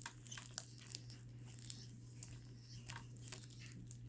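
Sticky homemade slime being kneaded and pulled between hands, giving faint irregular sticky clicks and crackles. A steady low hum runs underneath.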